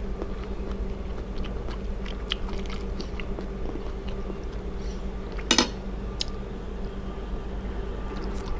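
Close-miked chewing of a mouthful of rice and food, with small wet mouth clicks and one sharper click about five and a half seconds in, over a steady low hum.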